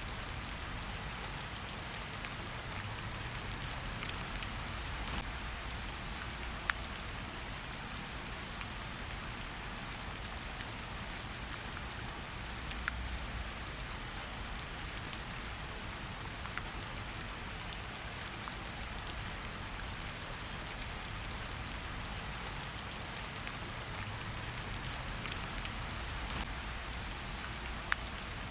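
Steady rain falling, an even hiss with scattered sharper drop clicks standing out now and then and a low rumble underneath.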